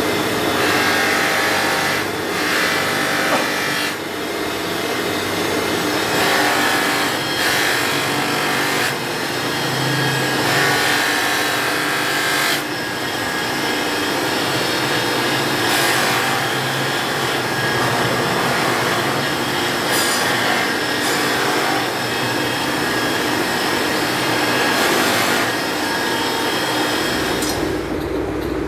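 Bench buffing machine running, its cloth buffing wheel spinning against a Damascus steel knife blade: a steady motor hum under a rasping rub that swells and eases every second or two as the blade is pressed on and worked along the wheel.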